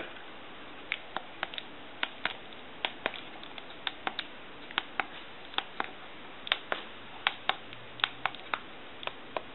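Keys on a touch-tone telephone keypad circuit board pressed one after another by thumb, giving a run of light, sharp clicks, many in close pairs. The numbers are being dialled through the redesigned board as a test.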